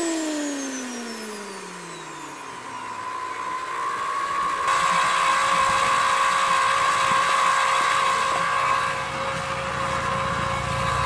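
Turbocharger gas turbine spinning down, its whine falling steadily in pitch over the first few seconds. From about four seconds in, a steady high whine holds over a rush of air.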